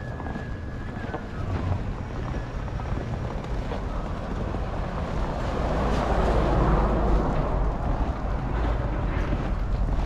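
Minivan driving past close by on a snow-covered street, its tyres on the snow rising to a peak about six to seven seconds in and then fading. Wind rumbles on the microphone throughout.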